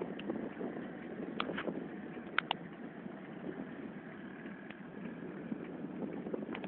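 Floodwater rushing in a steady, even noise after heavy rain, with a few sharp clicks; the loudest is a quick pair about two and a half seconds in.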